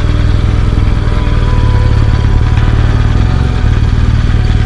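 Motorcycle engine running steadily and loud, close to the microphone, with no change in pitch.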